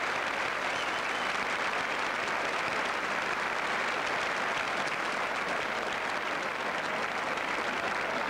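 A large crowd applauding steadily: a dense, unbroken wash of many hands clapping.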